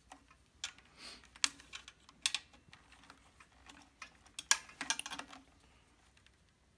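Irregular light metal clicks and taps as the grinder head and its bolts are slid round and set on an aluminium mounting rail with an Allen wrench. The sharpest knocks come about a second and a half in and about four and a half seconds in.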